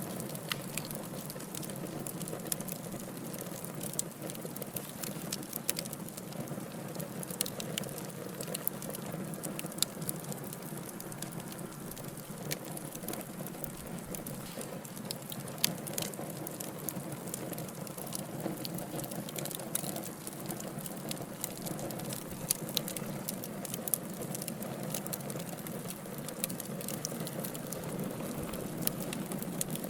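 Wood logs burning in a fire, with a steady low rushing and hissing and frequent irregular crackles and pops, a few sharper than the rest.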